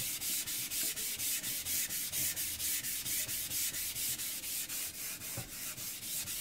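Rust eraser scrubbed back and forth on the wet surface of a King 1000 whetstone, a gritty rasping in quick, even strokes of about five a second. It is cleaning the metal swarf off the stone after sharpening.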